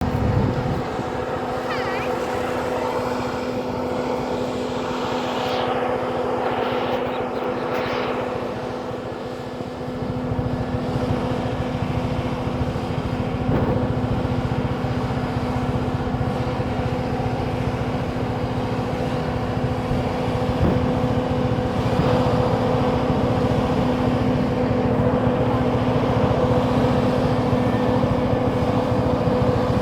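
Road roller's engine running steadily with an even hum. About ten seconds in, a heavier low rumble comes in and the level rises slightly.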